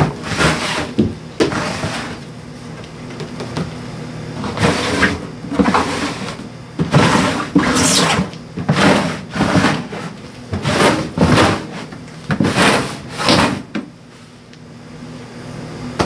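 Black plastic rodent tubs being slid in and out of a wooden rack, scraping along the wooden runners in a quick series of short strokes that stop near the end. The tubs run in and out freely.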